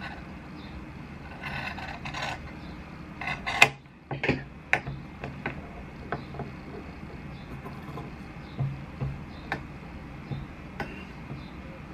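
Scissors snipping through cloth, then several sharp clicks and light taps as the scissors and fabric pieces are handled on a wooden table, the loudest click about three and a half seconds in, over a steady low hum.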